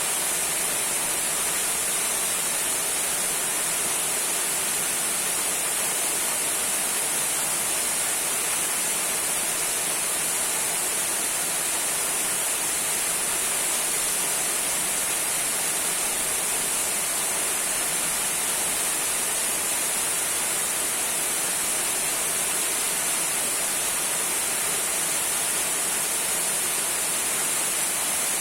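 Small waterfall trickling: a steady, unbroken rush of falling water with a bright hiss.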